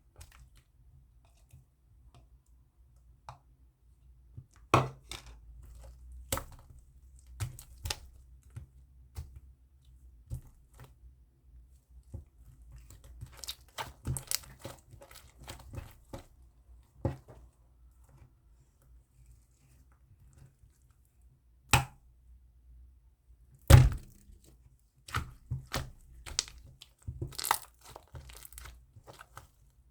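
Slime being handled by hand, making irregular sharp clicks and pops, some coming in quick clusters, with a couple of louder single snaps.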